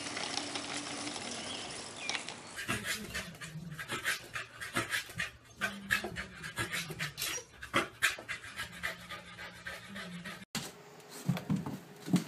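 A corgi panting quickly over and over, with sharp clicks and knocks mixed in. At first there is a steady rattle of scooter wheels rolling on asphalt.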